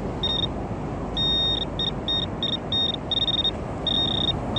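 Handheld metal-detecting pinpointer probe beeping in a single steady high tone as it is worked through the sand of a dig hole, in uneven pulses, some short and some held about half a second, as it closes in on a buried target. A steady rushing background noise runs underneath.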